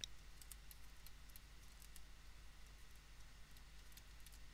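Near silence: a low room hum with faint, scattered clicks and taps from a pen or stylus writing on a digital drawing surface.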